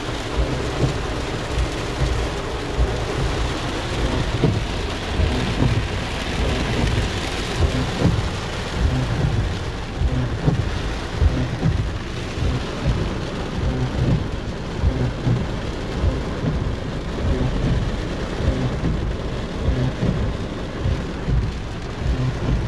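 Heavy rain beating on a car's roof and windshield, heard from inside the cabin: a dense, steady patter with many irregular low thuds.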